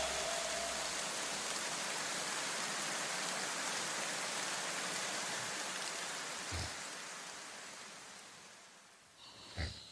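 A steady, even rushing hiss like rain or static that fades away over the last few seconds, with one brief soft knock near the end.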